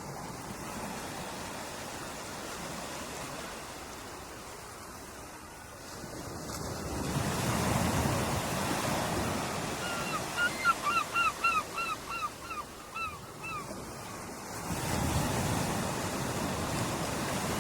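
Ocean surf washing on a beach, swelling as a wave breaks about six seconds in and again near the end. A little past halfway a seagull calls a quick run of about ten short, falling cries, about three a second.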